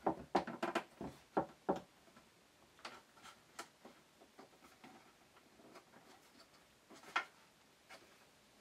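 Light wooden clicks and knocks from a pine tray frame and its round wooden pole handle being fitted together by hand and set on a workbench. A quick run of knocks comes in the first two seconds, then a few scattered taps, with one louder knock near the end.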